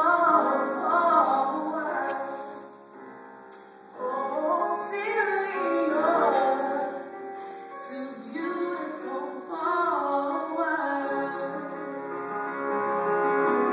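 A female voice singing a song over music, briefly softer about three seconds in.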